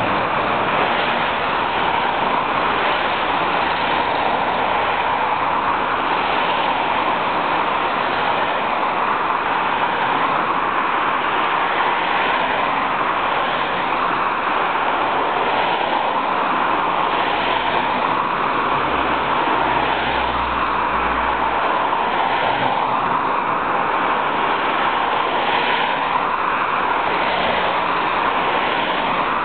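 Steady road traffic noise, with faint swells of cars passing now and then and a low rumble about two-thirds of the way through.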